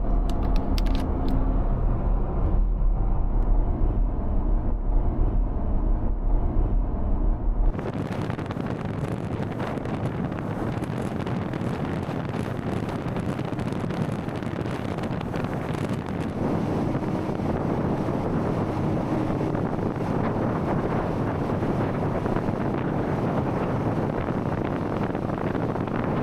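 Jeep driving at road speed: a steady low engine and road drone for the first several seconds, then, after an abrupt change about eight seconds in, loud wind rushing across the microphone over the vehicle's running noise.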